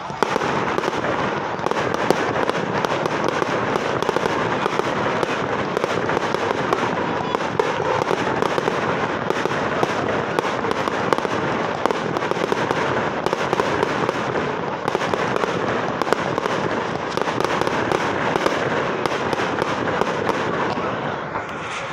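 Fireworks going off: a dense, continuous crackle with frequent sharp bangs of shells bursting overhead.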